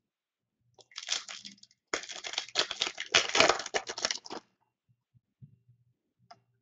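Wrapper of a 2015 Topps Chrome baseball card pack being crinkled and torn open: a dense run of crackling that starts about a second in, pauses briefly, and stops after about four and a half seconds.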